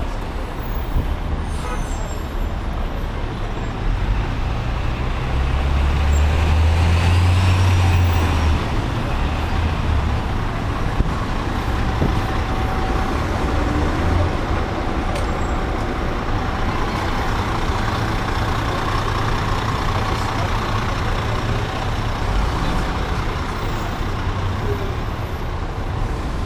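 Heavy diesel fire truck engine running close by on a city street, with a steady low rumble over traffic noise. The rumble swells for a few seconds, about a fifth of the way in.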